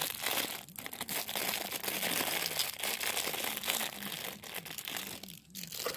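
Clear plastic wrapping crinkling in the hand as a small die-cast toy car is unwrapped, a dense crackle that dies down near the end.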